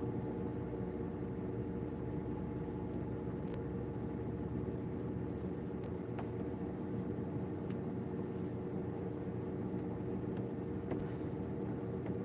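Steady engine and road hum of a vehicle being driven, holding one even level, with a few faint clicks.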